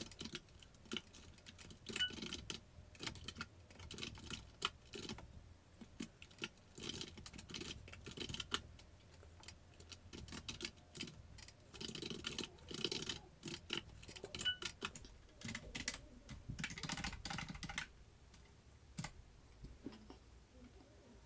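Computer keyboard typing: quick runs of keystrokes with short pauses between them, stopping about three-quarters of the way through apart from a single keystroke shortly after.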